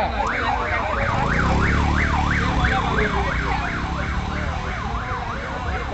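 A fast warbling electronic siren, its pitch sweeping up and down about three times a second, over a low rumble.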